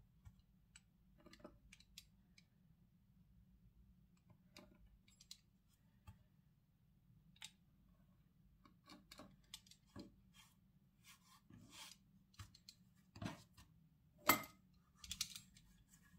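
Quiet, scattered clicks, taps and light knocks of things being handled in a kitchen, growing more frequent in the second half, with one sharper knock about 14 seconds in.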